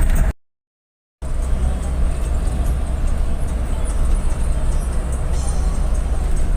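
Steady low rumble of a bus under way, engine and road noise, breaking off into dead silence for just under a second near the start.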